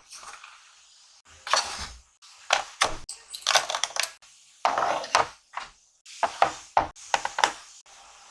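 Small objects being handled and set down on a hard surface: clusters of knocks and clicks mixed with short rustling.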